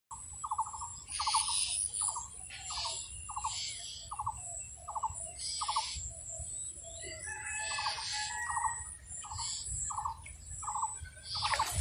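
Birds calling: a short rattling note of the same pitch repeated about every two-thirds of a second, with higher chirps in between, over a steady high whine.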